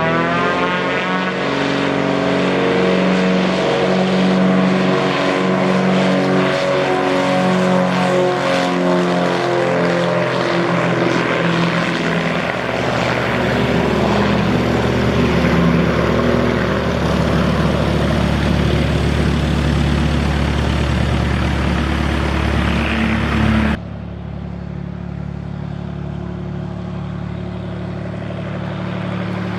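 Propeller airplane engine running at high power, its pitch falling over the first couple of seconds as it passes, then holding a steady drone. About 24 seconds in the sound cuts abruptly to a quieter steady engine hum.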